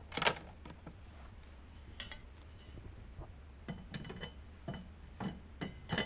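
Plastic clicks and knocks from handling the Chiltrix CXI-34 fan coil unit's louvered front grille. A sharp click comes just after the start and another at about two seconds, then several lighter ticks, over a faint low hum.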